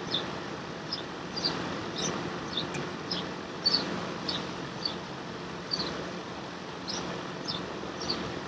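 A small bird chirping repeatedly, short high downward chirps about twice a second over a steady background hum.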